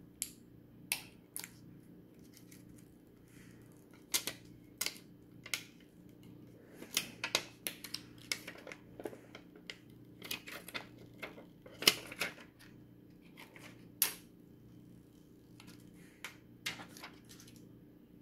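Irregular clicks and crackles of a clear plastic film being handled, peeled and pressed onto the back and edges of an iPhone, over a faint steady hum.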